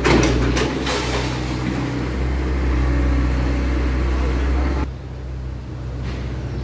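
Kobelco mini excavator's diesel engine running at a steady hum, with rubble and bricks clattering in the first second as the bucket works through the debris. The engine sound drops away suddenly about five seconds in.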